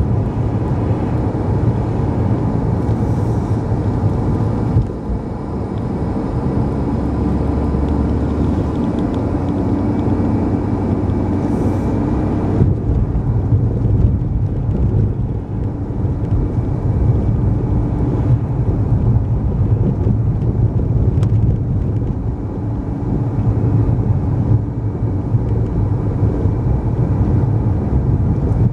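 Steady road noise inside a moving car's cabin: engine hum and tyres running on a wet road. The higher hiss drops away somewhat about twelve seconds in.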